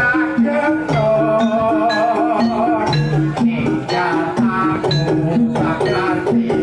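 Music: a singer with a wavering, ornamented voice over a bass line that repeats every half second or so, with steady drum strokes.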